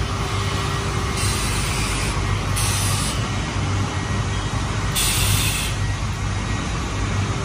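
Steady hum of glass processing line machinery running, with three short hisses of compressed air being released.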